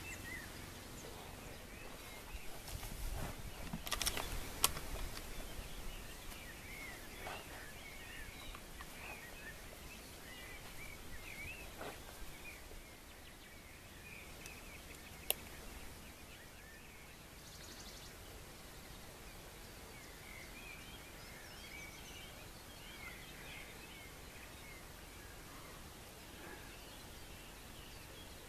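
Faint countryside ambience with small birds chirping and calling on and off throughout. Some rustling at about three to five seconds in, with two sharp single clicks, one about five seconds in and one about fifteen seconds in.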